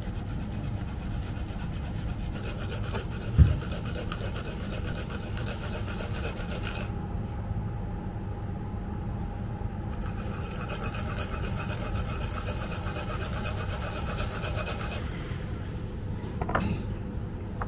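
Fresh wasabi root rasped against a flat metal grater: quick scraping strokes in two spells with a pause between them, and a single knock about three and a half seconds in.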